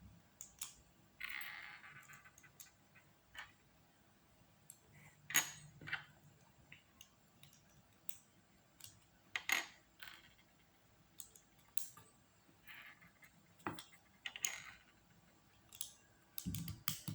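Lego Technic plastic parts being handled and pressed together: irregular sharp clicks and short scrapes of hard plastic, a dozen or so spread unevenly.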